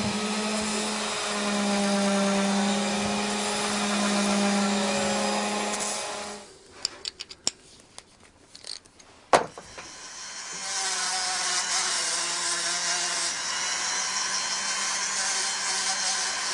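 A small high-speed rotary carving tool running with a steady motor hum and a high grinding hiss as it works the carving material. About six and a half seconds in it stops, leaving a few small clicks and one sharp tap. It starts grinding again about four seconds later.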